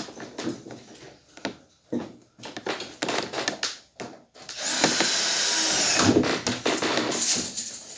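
Cordless drill running in one steady burst of about three seconds, starting about halfway through, after a few seconds of scattered knocks and clicks.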